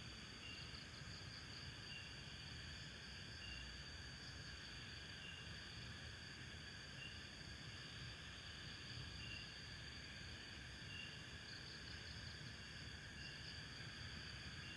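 Faint night insects chirping: a steady high trill with a short chirp every second or two, and a quick pulsing trill near the start and again near the end.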